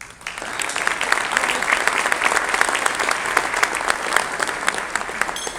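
Banquet audience applauding: many people clapping together, breaking out all at once and easing off near the end.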